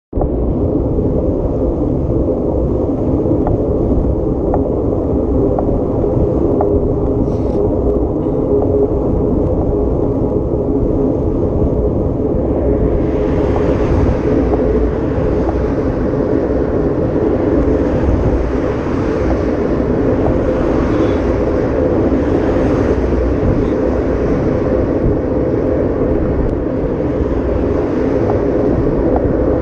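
Off-road vehicle engine running steadily under way, with a constant drone and rumble. About halfway through, a rushing hiss joins it and stays.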